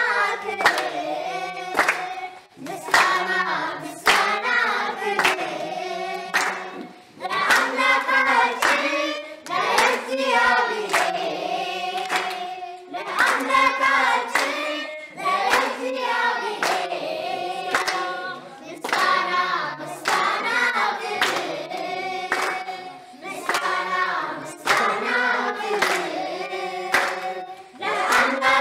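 A group of children singing together, with hand-clapping in time to the song.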